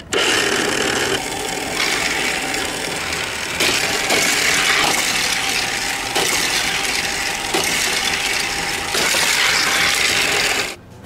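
Battery-powered motor and plastic gears of a Tomica toy highway's car lift running with a steady mechanical rattle, minicars rolling along the plastic road, with a few sharp clicks. It starts suddenly when switched on and cuts off shortly before the end.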